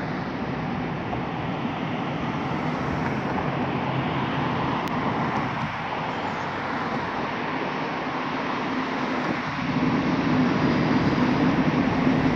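Regional train of n-Wagen coaches rolling past, pushed by an electric locomotive at the rear: a steady rolling rumble, joined about nine seconds in by a louder low hum as the locomotive comes by.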